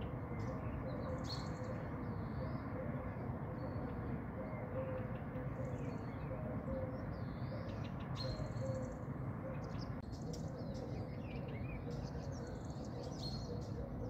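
Steady low hiss of a gas hob burner under a coffee pot, with a faint steady hum. Birds chirp in short, scattered calls over it.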